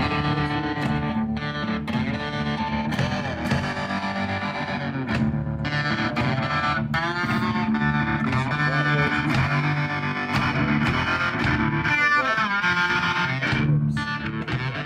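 Music with electric guitar.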